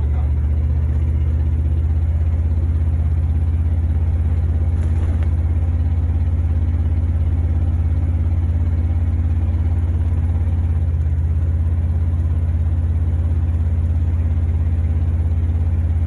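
Inside a 1972 Buick GS 455 convertible cruising at a steady speed: the 455 V8 and road noise make a steady low drone.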